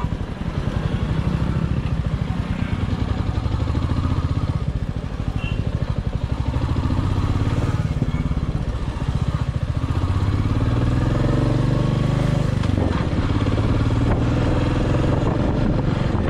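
Royal Enfield motorcycle engine running as the bike rides slowly through traffic, its pitch rising and falling as the rider opens and eases off the throttle in the second half.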